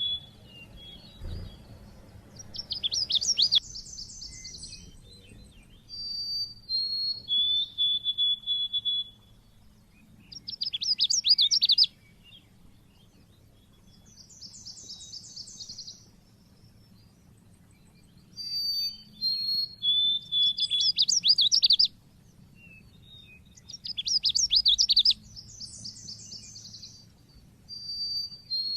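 White-eye (pleci) singing its loud 'cit keres' song. Short high whistled notes alternate with rapid bursts of sharp chirps, and the phrases repeat every few seconds, over a faint low hum.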